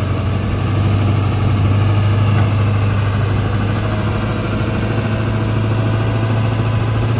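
A vehicle engine idling steadily with a low, even hum.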